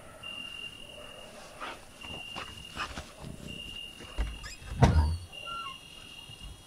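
Cricket trilling in repeated bursts of about a second, with short pauses between. A few soft rustles and clicks are heard, and a loud thump comes about five seconds in.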